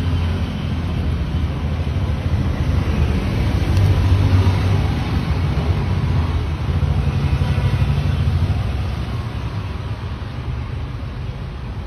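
Low rumble of road traffic, with engines swelling louder about four seconds in and again around seven to eight seconds.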